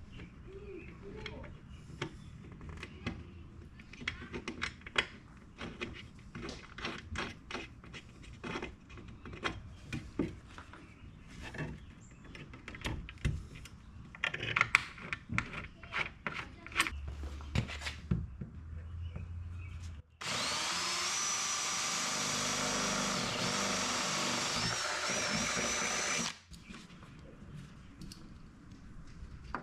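Scattered clicks and knocks of tools and parts being handled, then, about two-thirds of the way through, a power drill runs for about six seconds, drilling holes for the steel door armor's mounting, with a high whine that dips briefly, before it cuts off suddenly.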